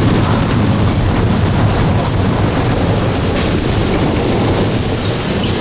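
Category 4 Hurricane Laura's eyewall winds blowing with heavy driven rain: a loud, steady rush with wind buffeting the microphone.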